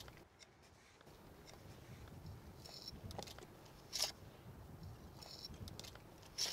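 Steel pointing trowel scraping wet mortar and packing it into the head joints of a brick arch. Short, faint scrapes come every couple of seconds, with a sharper click about four seconds in and again near the end.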